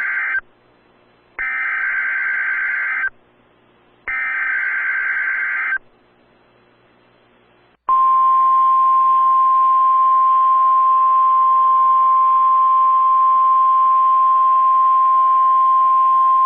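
NOAA Weather Radio Emergency Alert System activation announcing a tornado watch. First come the last of the SAME header's digital data bursts: the tail of one, then two more full bursts of about a second and a half each. After about two seconds of quiet, the long steady single-pitch weather-radio warning alarm tone starts about halfway through and holds to the end.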